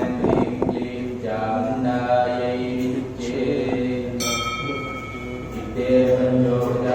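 Voices chanting Hindu mantras in long held notes. About four seconds in, a ringing tone starts suddenly and dies away over a second or two.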